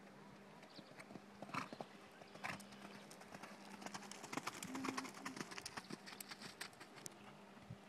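Connemara mare's hooves cantering on a gravel arena surface. The hoofbeats grow louder as she passes close by about halfway through, then fade as she moves away.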